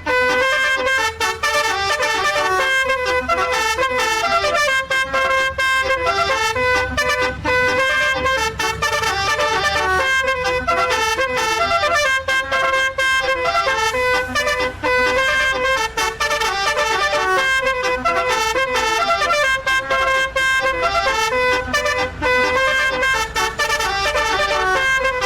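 A bus's basuri telolet multi-tone horn plays a continuous melody, its tones stepping up and down in pitch with only brief breaks.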